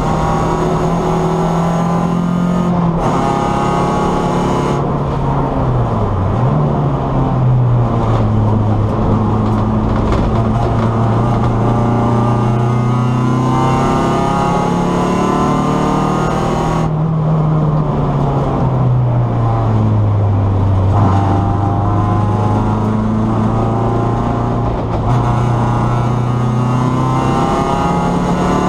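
Race car engine heard from inside the cabin at track speed, its revs rising and falling continuously, with a quick dip and recovery about six seconds in and a longer drop a little past halfway before building again.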